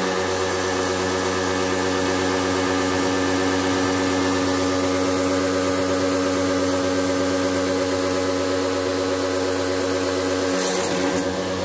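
Electric pressure washer's motor and pump running with a steady hum, water hissing out of the spray lance onto the air conditioner's coil. The hum falters briefly near the end, then picks up again.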